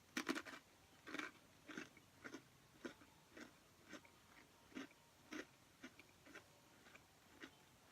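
Faint close-up chewing of thin, crispy pretzel crackers (Townhouse Flipsides Thins): a crunchy bite at the start, then steady crunching chews a little under twice a second.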